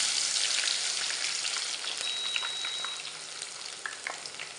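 Hot oil sizzling and crackling in a pan with black gram fried black and nigella seeds, as crushed garlic is added. Steady hiss with scattered pops, easing slightly in the second half.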